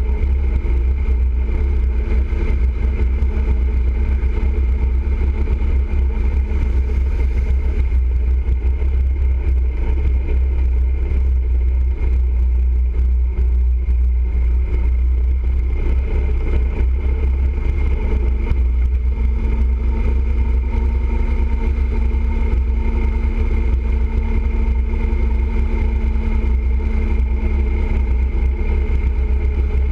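Motorcycle cruising at steady highway speed: a steady engine drone under a heavy, constant low rumble of wind on the bike-mounted microphone.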